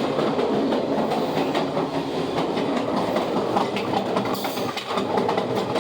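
Alaska Railroad passenger train running along the track, heard from inside the caboose: a steady rumble and rattle of the car and its wheels on the rails, with faint irregular clicks.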